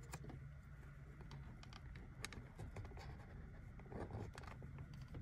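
A coin scratching the coating off a scratch-off lottery ticket: faint, short scrapes and clicks, with a longer run of scraping about four seconds in.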